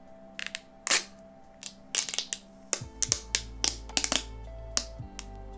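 Clear protective plastic film being peeled off the back of a smartphone: a run of sharp crackles and clicks, the loudest about a second in and a busy cluster in the middle. Steady background music plays underneath.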